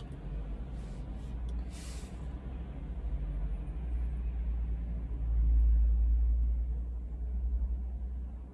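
Low, steady vehicle rumble heard from inside a car's cabin, swelling about five seconds in. A short hiss comes about two seconds in.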